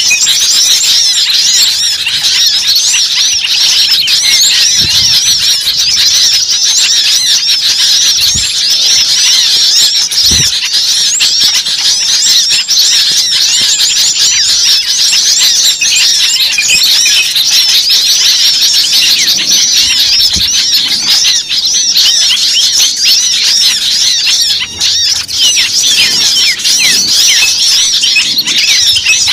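A dense, steady chorus of many small birds chirping and squealing at once, countless high-pitched calls overlapping, with a few faint low thumps underneath.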